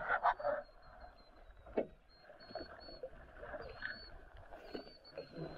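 Water sloshing around a small fishing boat, with a louder rush of water in the first half second and a sharp knock about two seconds in, then softer scattered knocks.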